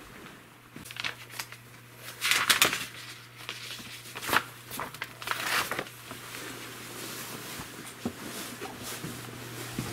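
Microwave oven switched on and running with a steady low hum. Crinkling, rustling handling noises sound over it, loudest two to three seconds in and again around four to six seconds in.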